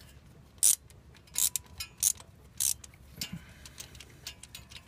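Half-inch hand ratchet clicking in short strokes, four sharp clicks about two-thirds of a second apart, then lighter ticks, as it backs a loosened spark plug out of a 5.0 Ford V8.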